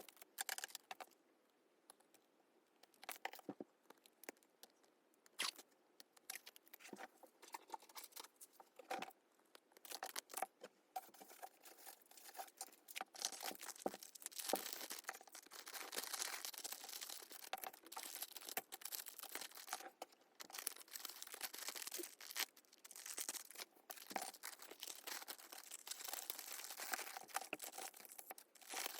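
Plastic packaging being handled: crinkling and rustling with scattered clicks and tearing sounds. It is sparse at first and becomes a near-continuous rustle from about halfway through.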